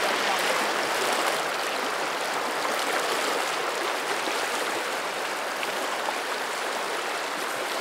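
Fast, shallow river rushing steadily through a riffle, an even wash of moving water.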